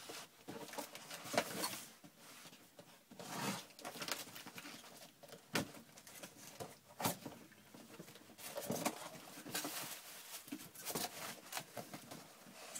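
Cardboard shipping box being opened by hand: irregular scraping, tearing and rustling of cardboard and packing material, with a couple of sharp snaps about midway.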